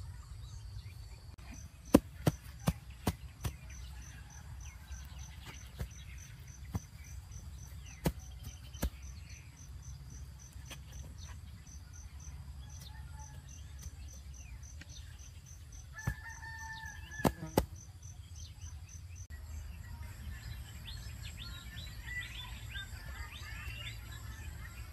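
Outdoor ambience: an insect chirping in a steady train of rapid, even pulses over a low background rumble, broken by a few sharp clicks, five of them close together about two seconds in. About two-thirds of the way through a short two-note call sounds, and near the end the background turns to scattered bird chirps.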